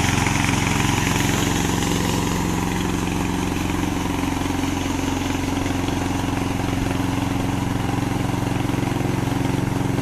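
Engine of a JT550 remote-controlled lawn mower running steadily, slightly louder in the first couple of seconds and then settling.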